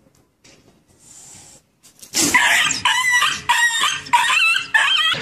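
A run of about six loud, high-pitched animal cries in quick succession, starting about two seconds in after a near-quiet start.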